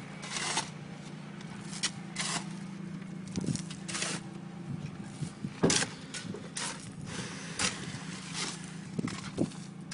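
A vehicle engine idling steadily, with irregular scraping crunches of gravel.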